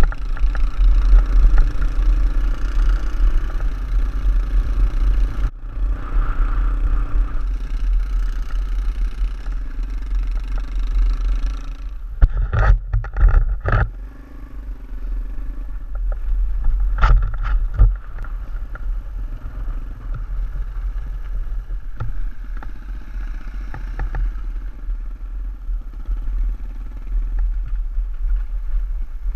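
Yamaha XT225 Serow single-cylinder motorcycle running on the move, under heavy wind rumble on the microphone. Sharp clattering knocks come in a quick cluster about twelve to fourteen seconds in and once more about seventeen seconds in.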